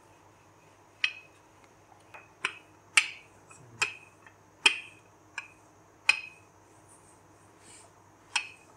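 Wooden rolling pin rolling out puff pastry dough on a floured worktop, giving short sharp clicks at irregular intervals, roughly one a second, some much louder than others.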